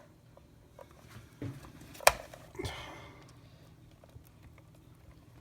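A few small handling knocks and clicks: a soft knock, then one sharp click about two seconds in, followed by a brief scraping rustle, then quiet room noise.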